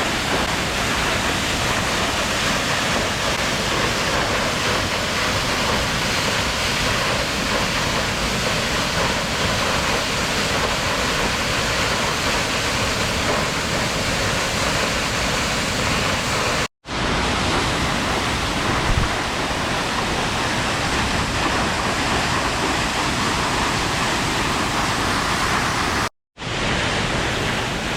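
Waterfall pouring: a loud, steady rush of falling water. It cuts out abruptly for a split second twice, about 17 and 26 seconds in.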